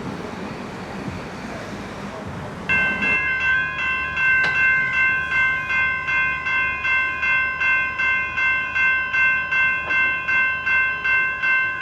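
Railway level crossing warning bells start ringing about three seconds in and keep striking evenly, a little over twice a second. They signal a train approaching and the boom gates lowering. Before they start there is only a low rumble of the surroundings.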